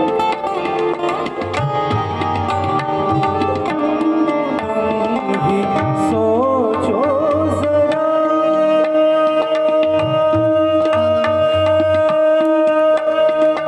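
Live ghazal accompaniment through a PA: tabla playing a steady rhythm with deep bass-drum strokes, under harmonium and acoustic guitar. A wavering, ornamented sung phrase comes about six seconds in, followed by a long held note.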